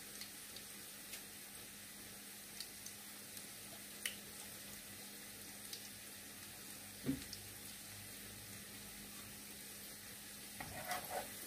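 Okoy (vegetable and dried-shrimp fritters) shallow-frying in oil in a pan: a steady sizzle with scattered pops. A single knock about seven seconds in, and a few short knocks near the end.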